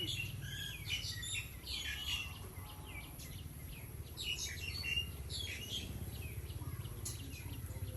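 Birds chirping, many short calls in quick succession, over a steady low hum.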